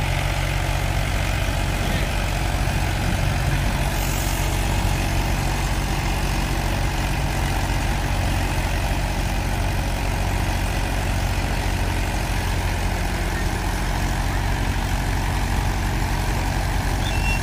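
Mahindra 475 DI tractor's diesel engine running steadily at low revs, with no revving, while it sits stuck with its loaded trolley, and a second tractor's engine also running.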